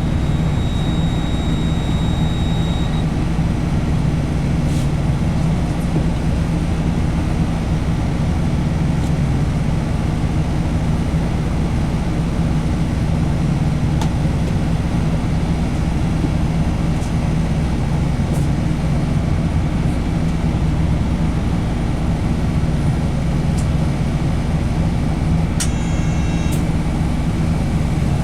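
A bus driving, heard from inside the passenger cabin: a steady, even engine drone with road noise.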